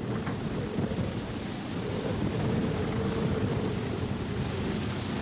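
Wind and sea rushing past a sailing ship under full sail as it cuts through the waves: a steady rushing noise that grows a little louder about two seconds in.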